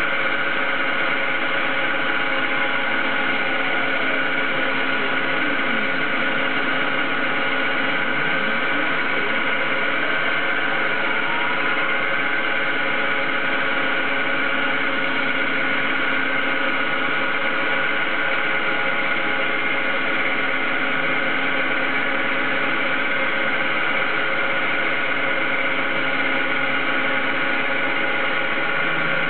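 CNC-controlled lathe running as a boring bar cuts a hemispherical recess, giving a steady motor hum and whine with several steady tones. One stepper-motor tone on the saddle and cross-slide drive falls in pitch a few seconds in, then rises again a few seconds later.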